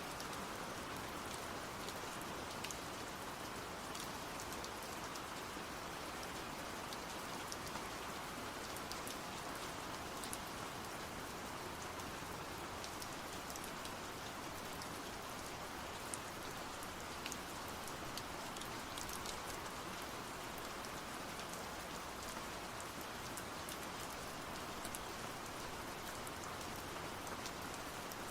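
Steady rain falling, a continuous hiss with scattered small drop ticks.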